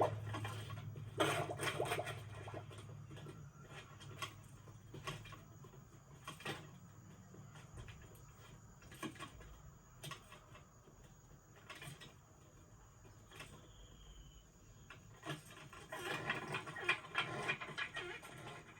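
Film foley effects: rustling and scraping with scattered sharp clicks and knocks, busiest near the start and again near the end. A low hum fades out over the first several seconds.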